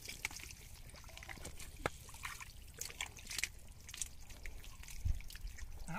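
Hands groping through shallow water and soft mud: scattered wet squelches, splats and drips, with a low thump about five seconds in.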